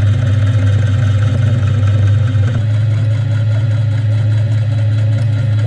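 Milling machine running a carbide face mill across a steel plate: a steady motor and spindle hum with the rough noise of the cut.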